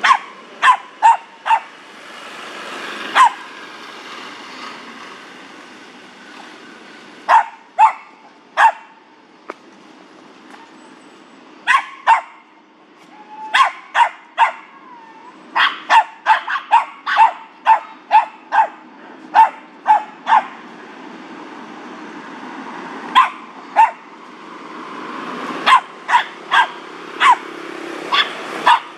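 Small poodle-type dog barking: sharp, high yaps in quick runs of a few barks, with pauses of a few seconds between runs and the longest run in the middle.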